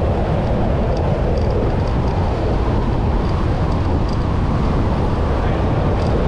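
Steady wind buffeting the microphone and water rushing past a moving pontoon boat, at an even, loud level throughout.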